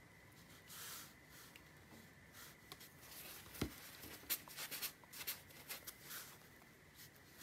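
Faint, light scratching and tapping of a round watercolor brush working on cold-press paper, with a soft thump about three and a half seconds in and a cluster of small scratchy strokes just after.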